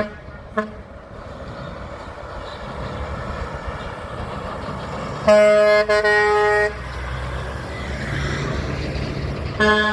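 Heavy trucks passing with air horns. Two short toots come right at the start, then truck engine and road noise builds as one approaches. A loud horn blast begins about five seconds in and lasts about a second and a half, and another horn blast starts near the end.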